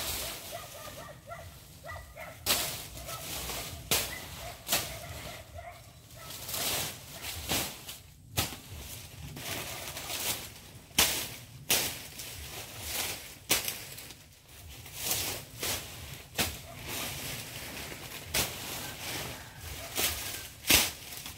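Dry banana leaves crackling and rustling in irregular sharp snaps as they are pulled and torn from a banana plant's trunk. Faint bird calls in the first few seconds.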